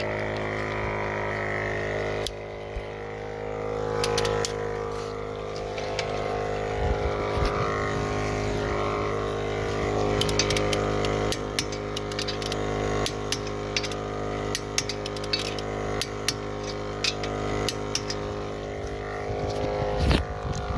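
An engine running steadily at idle, with scattered sharp clicks and knocks from the tire work over it.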